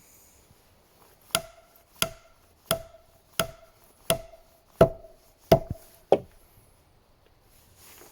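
Repeated blows on wood driving a wooden wedge into a split peg: about eight evenly paced knocks, roughly two-thirds of a second apart, each with a short ringing note, stopping about two seconds before the end.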